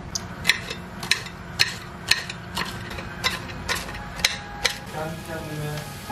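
A kitchen utensil clicking sharply at a steady pace of about two strikes a second, nine strikes in a row, over a low steady background hum.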